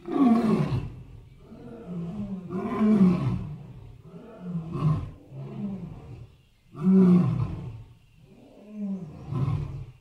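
Lion roaring and growling in a series of separate calls. The three loudest come about a second in, at about three seconds and at about seven seconds, with softer calls between them. The recording breaks off abruptly at the end.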